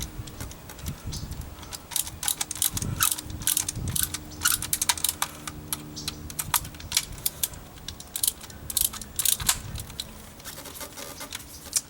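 Irregular small clicks and scrapes of a hand Phillips screwdriver and plastic trim parts as screws are driven into a plastic door bezel. A faint low steady hum runs under the clicks for a few seconds in the middle.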